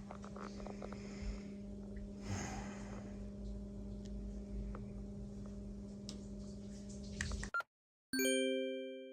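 A low steady hum that cuts off abruptly, followed by a single bell-like chime that rings and fades away.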